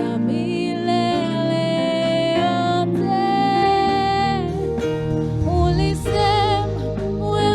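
Music from a Swahili gospel praise song, with long held melody notes that waver slightly, changing pitch every second or two.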